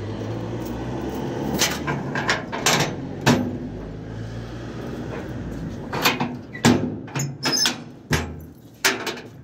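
Knocks and clanks of cargo boxes being shifted against a pickup truck's metal bed and side rails, about eight sharp hits spread out, over a steady low hum that drops away near the end.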